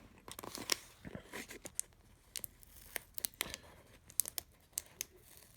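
Tool packaging being opened and handled: cardboard and plastic crinkling and tearing, with many short sharp crackles and clicks.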